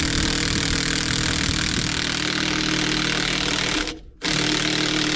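A handheld power tool driving a scissor jack's screw through a socket, running steadily in two trigger pulls with a short stop about four seconds in.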